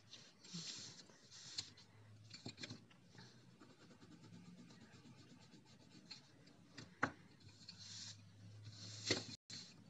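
Coloured pencil shading on paper: short bursts of scratchy strokes, with a few sharp clicks, the loudest near the end.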